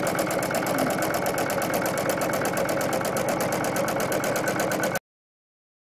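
Domestic sewing machine running at a steady fast speed with a free-motion quilting foot, its needle giving an even, rapid stitching rhythm as it sews an all-over swirl pattern through the quilt batting. The sound cuts off suddenly near the end.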